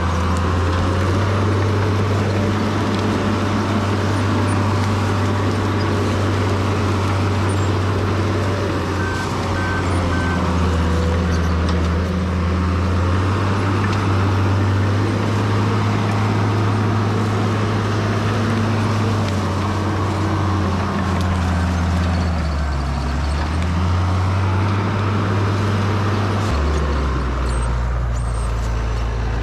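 Case 850K crawler bulldozer's diesel engine working under varying load as it pushes through trees and brush. The engine pitch rises and falls, dips about two-thirds of the way through, and shifts again near the end. A backup alarm beeps briefly a few times.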